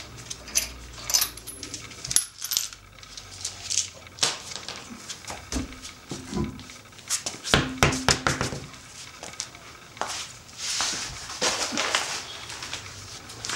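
Small metal clinks and clicks of lug nuts being spun off wheel studs by hand and set down, with a few louder ringing metal clanks around the middle.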